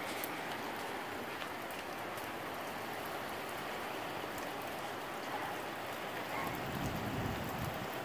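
Steady heavy rain hissing, with scattered drops ticking close by, during a gusty storm. A low rumble swells briefly near the end.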